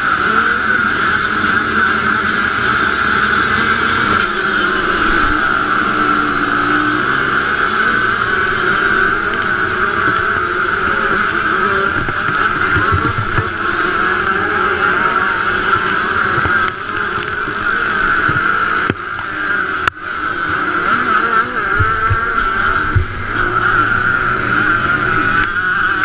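A pack of motocross bikes revving at the starting gate and then racing off together. The rider's own bike runs at high revs close to the microphone, over the engines of the surrounding field.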